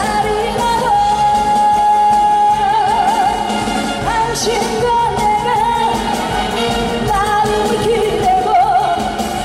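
A woman sings a Korean trot song into a handheld microphone over loud backing music. About a second in she holds one long note, which ends in vibrato.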